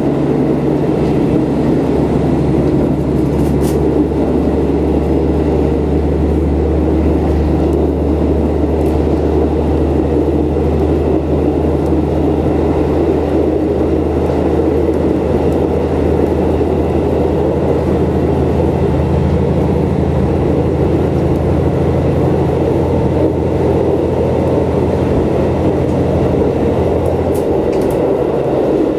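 KiHa 40 diesel railcar under way, heard from inside the car: the diesel engine's steady low hum over the rumble of wheels rolling on the rails. Near the end the engine's hum drops away and only the rolling rumble carries on.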